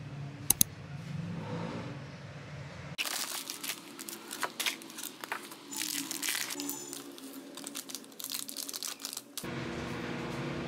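Plastic food pouches crinkling and rustling as instant rice-cake and noodle packets are handled and emptied, with sharp crackles from about three seconds in. Near the end a microwave oven starts running with a steady hum.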